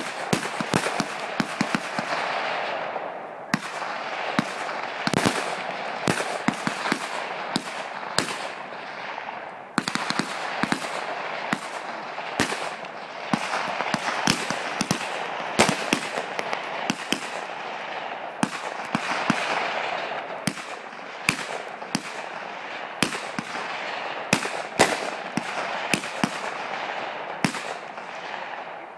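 Rifle fire from a line of prone shooters: many sharp shots at irregular intervals, often several a second and sometimes overlapping. A steady rushing noise runs beneath the shots.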